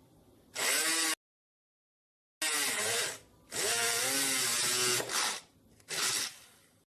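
Homemade mini drill built on a 775 DC motor running in several short bursts, its whine dipping and rising in pitch as it takes load, each burst cutting off abruptly.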